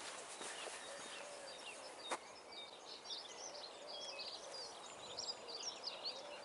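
Faint outdoor birdsong: distant wood pigeons cooing in repeated soft phrases, with small songbirds chirping and trilling over them. A single sharp click comes about two seconds in.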